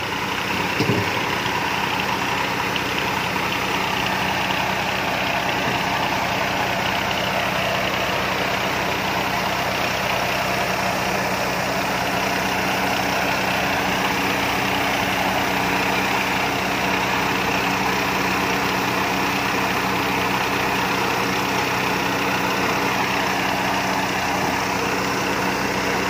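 Rice combine harvester's diesel engine running steadily at working speed while it unloads threshed rice through its unloading auger, a constant rushing noise over the engine's hum. A short knock about a second in.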